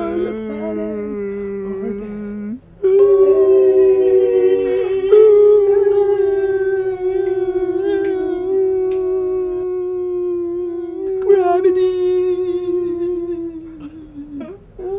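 A man's voice wailing in long, mournful held notes that waver and slowly sink in pitch, with a short break for breath about two and a half seconds in, fading near the end.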